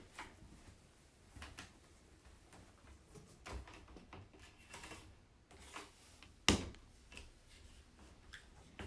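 Scattered light clicks and knocks of plastic cage parts and an aluminium rod being handled during assembly, with one sharper knock about six and a half seconds in.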